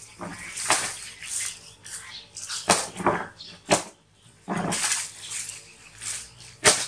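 Several short, loud animal calls, one after another.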